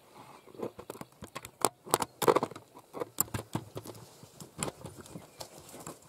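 Irregular close clicks and knocks of handling noise from a camera held up against a twig nest, loudest about two seconds in.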